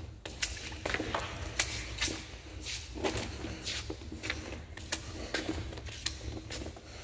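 Footsteps scuffing along the concrete floor of a storm-drain tunnel, irregular steps about one or two a second, over a steady low rumble.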